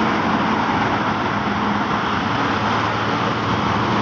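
Steady road traffic: a bus engine running as the coach moves off down the road, with the tyre and engine noise of passing cars.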